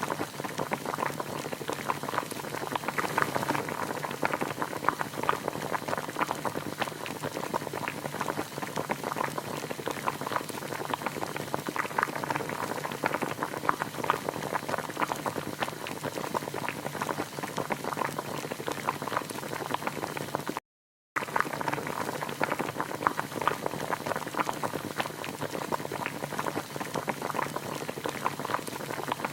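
A pot of water boiling hard, a dense, steady bubbling. It drops out for about half a second roughly three-quarters of the way through.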